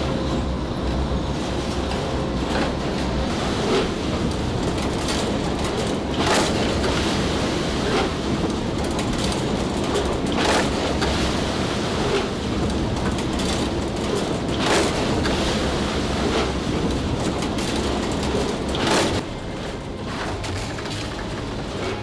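Machinery of a laver (gim) processing line running with a steady rumble, a sharp clack about every four seconds. Near the end the sound changes and drops a little.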